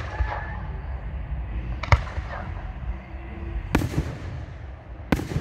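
Aerial fireworks shells bursting: four sharp bangs, the first three about two seconds apart and the last coming sooner, over a steady low rumble.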